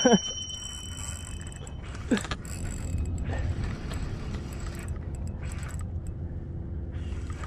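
Daiwa Luvias LT spinning reel being cranked, its gears turning steadily as a hooked fish is fought, over a steady low rumble.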